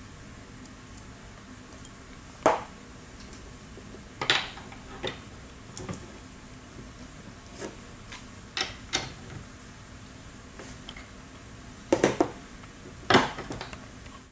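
Steel parts and hand tools clinking and knocking against each other and the bench vise as a part is assembled: a scattered series of about ten sharp metallic clinks, the loudest about two and a half seconds in and two close together near the end.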